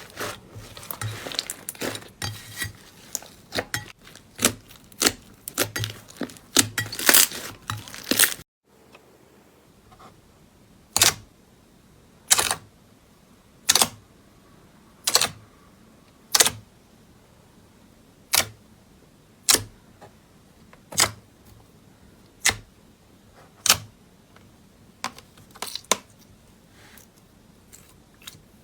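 Slime being pressed and poked, making wet crackling clicks for the first eight seconds. After a sudden cut, single sharp pops follow about every second and a half.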